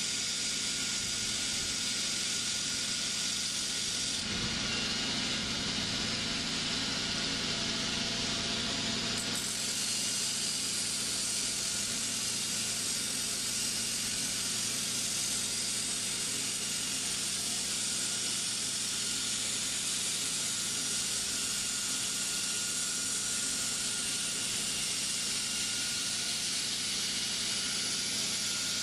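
Band saw blade steel being ground to a knife profile on a grinder: a steady high hiss of abrasive against metal, with a deeper note added from about four to nine seconds in.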